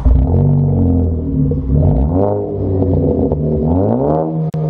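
Car engine revving over a steady running note: the pitch climbs and drops back about two seconds in, then climbs again near the end. A sharp click sounds just before the end.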